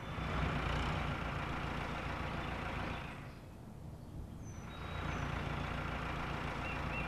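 Cartoon engine sound effects of farm vehicles driving along a road. The engines fade away about three seconds in, and then a tractor engine comes in and keeps running steadily.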